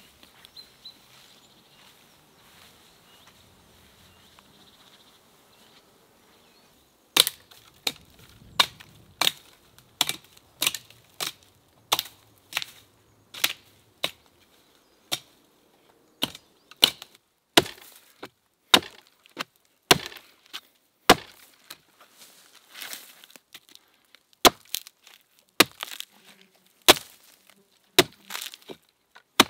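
Small axe chopping into a thin standing conifer trunk: a long run of sharp wooden strikes, one or two a second with short pauses, beginning about seven seconds in after a stretch of faint outdoor background.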